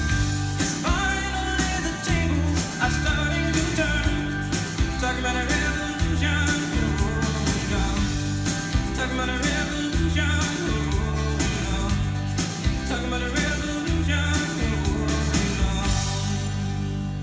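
A song with singing and guitar played from an old, scratched vinyl record through a pair of ELAC Uni-Fi UB5 bookshelf speakers with a subwoofer, driven by a KT88 tube amplifier and heard through a phone's mono recording. Near the end the high notes drop away, leaving low tones sounding as the music fades.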